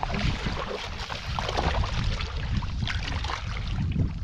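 Feet splashing and squelching through shallow muddy water, a step every second or so, over a steady wash of water.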